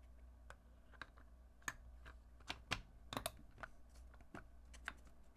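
Faint, irregular light clicks and taps of a clear plastic screen-protector installation jig being pressed down and seated onto a phone.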